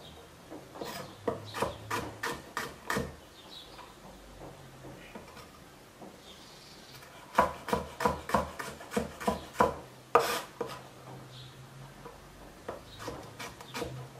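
Kitchen knife chopping radishes on a wooden cutting board: runs of quick knocks, about three a second, broken by short pauses.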